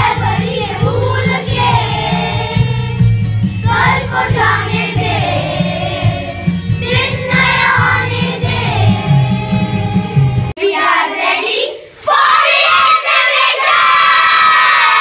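A group of children singing together over a musical accompaniment. About ten and a half seconds in the accompaniment stops, and from about twelve seconds the children burst into loud cheering and shouting.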